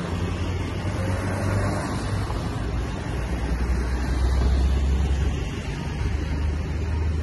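Road traffic at a junction: cars and a box truck driving past, a steady mix of engine and tyre noise. A low engine drone swells to its loudest about four to five seconds in.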